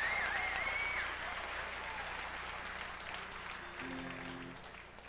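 Audience applauding, with a wavering whistle in the first second, the applause dying away over the next few seconds. A short low note is held for about half a second near four seconds in.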